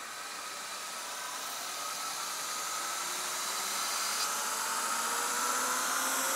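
Belt grinder running with a large contact wheel fitted: a steady motor-and-belt whine over a rushing hiss, slowly rising in pitch and getting louder as it speeds up.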